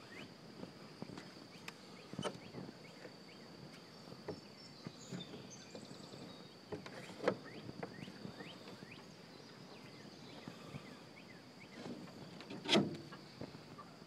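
Steady high-pitched drone of insects, with scattered knocks and scrapes of handling against the wooden coop. Two louder thumps come about 7 seconds in and near the end.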